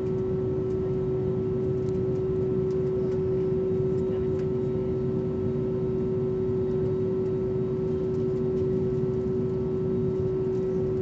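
Airbus A320neo cabin noise while taxiing: a steady hum from its Pratt & Whitney PW1100G geared turbofan engines at idle, with one constant whine over a low rumble and a few faint light ticks.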